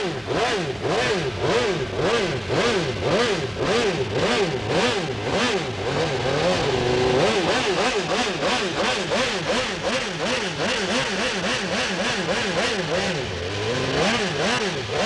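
Four-stroke V4 engine of a Honda NR500 Grand Prix racing motorcycle revved repeatedly on the stationary bike, its pitch rising and falling about twice a second.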